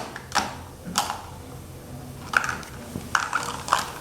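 Light clicks and knocks of plastic toy kitchenware being handled, a few scattered taps over about four seconds.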